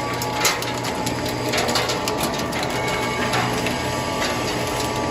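Dual-shaft shredder running under load: a steady low motor hum with irregular sharp cracks as plastic breaks between the cutter shafts.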